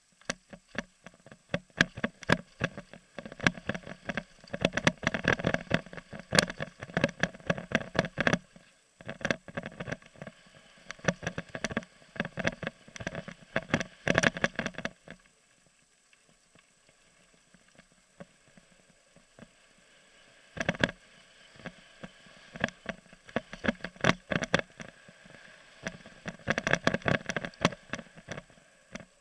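Mountain bike clattering down a rough dirt trail: dense, irregular knocks and rattles from the bike over bumps and gravel. About halfway through it goes quiet for several seconds, then the clatter picks up again.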